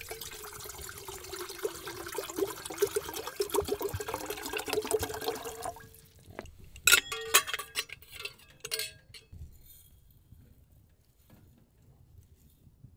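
Water poured from a plastic bottle into a blue enamel percolator coffee pot, a steady splashing fill that stops about six seconds in. A few sharp metal clinks follow as the percolator basket and stem are set into the pot, then it goes quiet.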